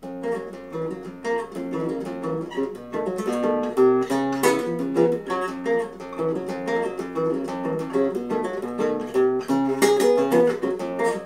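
Nylon-string acoustic guitar played solo, picked chords and quick runs of notes in a steady rhythm: the instrumental introduction to a song, before the singing comes in.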